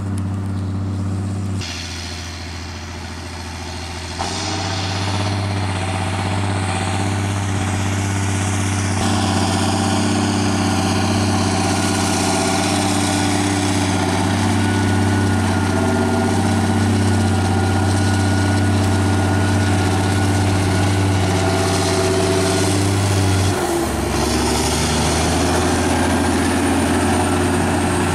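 Straight-piped diesel engine of a Claas Axion tractor running steadily under load while pulling a cultivator. The drone changes pitch abruptly a few times.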